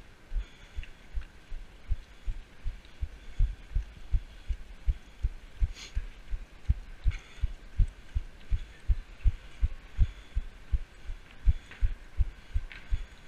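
A runner's footfalls coming through a body-mounted action camera as steady low thuds, about three a second, at a running stride, over a faint hiss.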